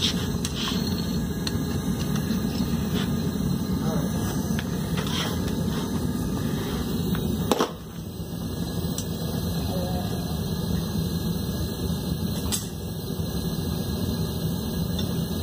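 Propane burner of a small homemade melting furnace running with a steady rushing noise. A sharp knock comes about seven and a half seconds in, as the furnace lid and tongs are handled.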